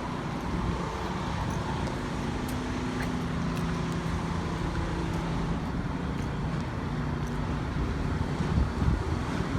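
Street traffic, with a vehicle's engine humming steadily. Wind buffets the microphone in gusts near the end.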